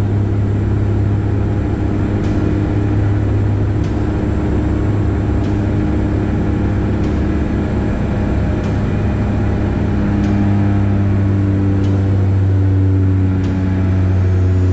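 Cabin drone of a De Havilland Canada Dash 8 Q400's turboprop engines and six-bladed propellers in the climb after takeoff, heard from a seat beside the propeller. It is a loud, steady hum with a strong low propeller tone and a stack of overtones, some drifting slightly in pitch.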